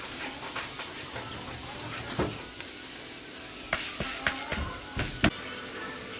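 A few sharp knocks and clatters, the loudest in the second half, over faint, repeated short falling chirps of birds.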